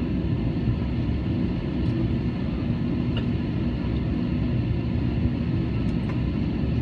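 Steady low rumble inside an Airbus airliner's passenger cabin, with a faint steady hum beneath it: the cabin's air and machinery noise after landing.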